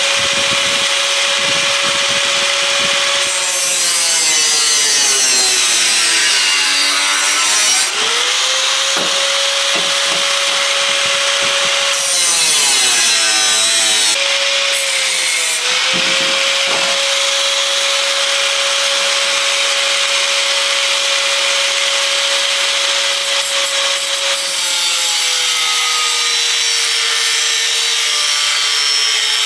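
A high-speed power tool running with a steady whine over a rasping cutting noise. Its pitch sags several times as it bears into material and recovers when eased off.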